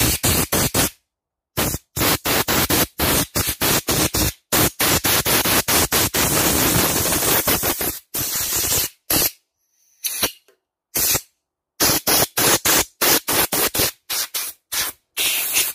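Compressed air from an airline blow gun, let off in many short blasts with one longer blast of about three and a half seconds in the middle, blowing out and drying the cleaned parts of a lawnmower carburettor.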